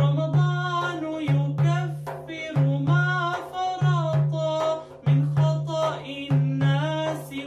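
A man singing an Arabic nasheed solo over a frame drum: deep strokes falling in pairs about every second and a quarter, with bright jingle clicks between them.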